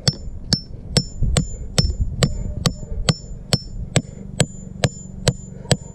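Claw hammer striking the head of a steel bolt, driving it into soft sandy ground. Steady blows about two a second, each with a short metallic ring.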